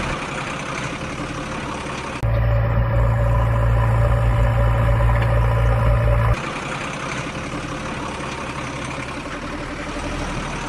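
Truck engine idling sound effects, spliced together: a steady engine runs, and about two seconds in it switches suddenly to a louder, deeper idling engine that cuts off abruptly a little past the middle.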